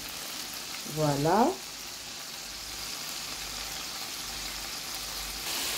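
Shell-on tiger prawns sizzling in a little olive oil in a nonstick frying pan over a gas flame just turned up: a steady frying hiss that grows a little louder near the end.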